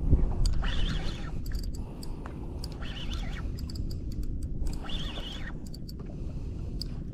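Spinning reel's drag buzzing out line in short bursts about every two seconds as a big hooked fish pulls against the bent rod, over a steady low rumble.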